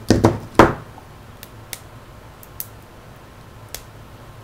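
Metal pliers set down on a tabletop: a few sharp clatters in the first second, then scattered faint clicks and taps as the phone is handled.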